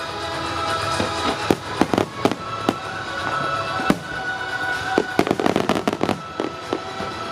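Wide starmine fireworks barrage: shells bursting in quick clusters of sharp bangs, thickest about five to six seconds in, over music played along with the display.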